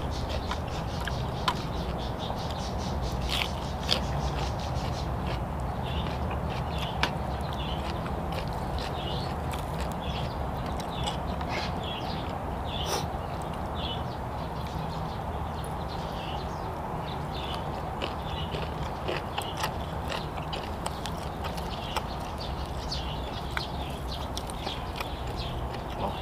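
A person chewing crisp raw vegetables and long-bean salad close to the microphone, with many small, scattered crunches, clicks and smacks over a steady background hiss.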